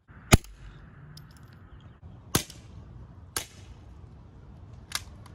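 Four .22LR rifle shots, unevenly spaced: the first, and loudest, about a third of a second in, two more around two and three seconds in, and the last near the end. Each is a sharp crack with a brief tail.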